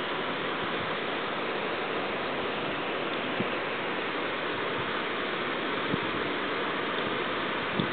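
Steady rush of running water in a trout stream, with a few faint knocks.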